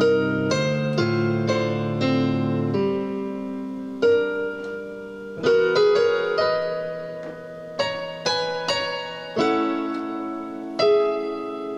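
Solo piano playing a slow, gentle theme in chords. Low bass notes drop out about three seconds in, leaving sparser chords in the middle range, each struck and left to ring.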